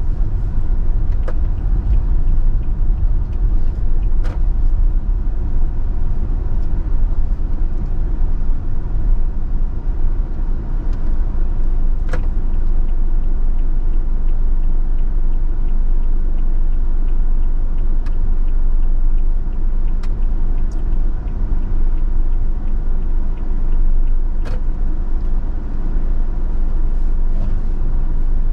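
Car driving slowly over a rough, unpaved dirt road, heard inside the cabin: a steady low rumble of tyres and engine. A handful of sharp clicks stand out, spread through it.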